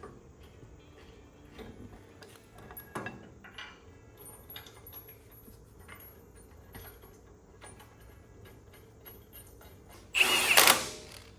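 Light metallic clicks and ratcheting as caliper-bracket bolts are started and snugged by hand. About ten seconds in, a cordless power tool runs briefly to drive a bolt in, the loudest sound.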